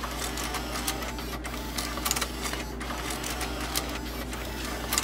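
Ford six-disc in-dash CD changer mechanism whirring with a few sharp clicks as its motor shifts the disc stack from slot to slot on power-up, checking which slots hold discs.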